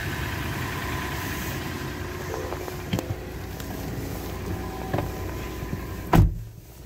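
2018 Toyota 4Runner's 4.0-litre V6 idling steadily in park, with two light clicks and a single heavy thump near the end.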